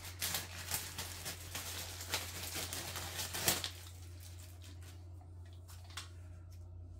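Thin plastic bag crinkling and rustling as it is pulled off a multi-cooker's thermostat and power cord, in quick irregular crackles that stop about three and a half seconds in. After that, only a few faint clicks from the cord being handled.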